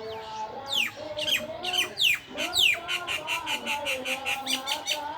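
A bird calling: several quick, steeply falling high whistles, then a fast run of repeated high chirps, about five a second, that stops just before the end.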